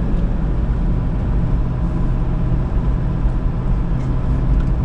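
Steady engine and road rumble heard inside a pickup truck's cab while driving, with a faint steady whine above it.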